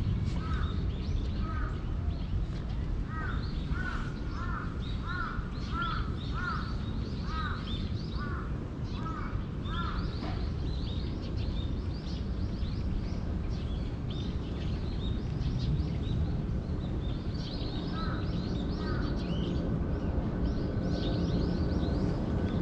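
Birds calling: one bird gives a run of short repeated calls, about two a second, through the first ten seconds or so, while smaller birds chirp higher up throughout, over a steady low rumble.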